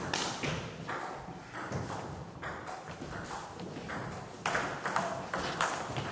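Table tennis ball being struck by bats and bouncing on the table: sharp clicks, spaced out at first, then a quick run of about five in the last second and a half as the rally goes on.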